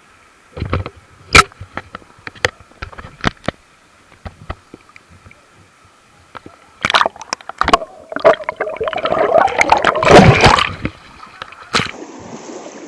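Shallow river water splashing and sloshing as someone wades through it, with a run of sharp knocks in the first few seconds and heavier, continuous splashing from about seven to eleven seconds in.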